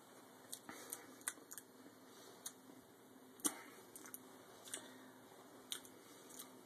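Faint, scattered small clicks and taps: handling noise from a phone being moved about. About a dozen over several seconds, the loudest about three and a half seconds in.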